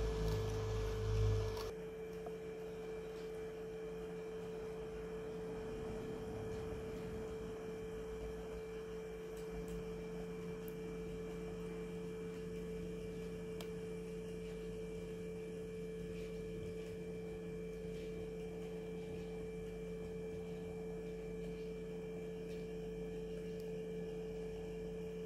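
HO-scale model freight train running: for the first couple of seconds the wagons roll past close by with a low rumble, then a steady electric hum carries on with occasional faint clicks of wheels on the track.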